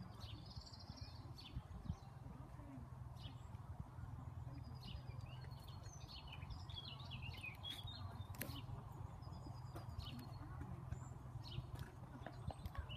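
Small birds singing, with many short, quick chirps and trills, over a steady low rumble.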